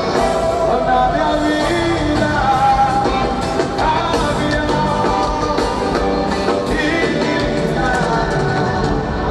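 Forró band music with singing over it, played loud and steady.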